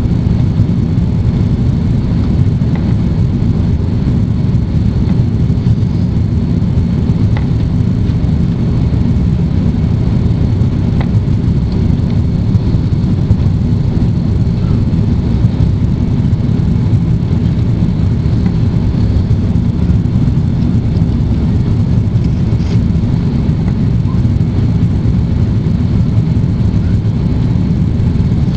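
Steady low rumble of engine and airflow noise heard inside the cabin of an Airbus A330 airliner during its landing.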